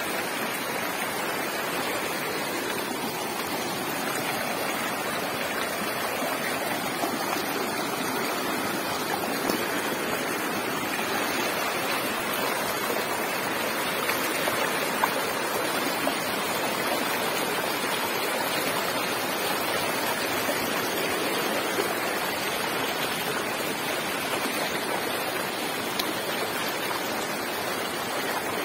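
Muddy runoff from heavy rain rushing fast along a field channel, a steady, unbroken rush of water.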